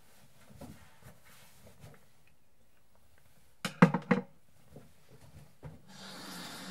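A quick cluster of four or five sharp knocks and clatters about halfway through, like small objects handled on a wooden bathroom shelf. Near the end, water starts running from a tap into the sink.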